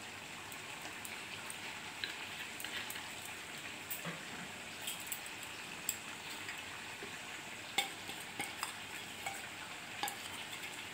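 Chicken and potato curry sizzling steadily in oil in a kadai over a gas flame, with scattered small pops and clicks.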